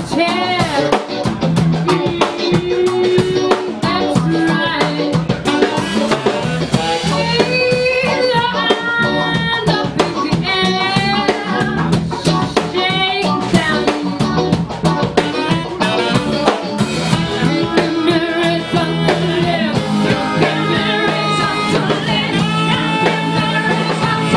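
Live rock band playing: a woman sings lead into a microphone over electric guitar and a drum kit.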